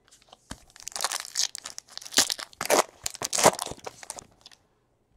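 A clear plastic wrapper crinkling and tearing as it is pulled off a stack of trading cards, in an irregular string of crackly rustles that die away near the end.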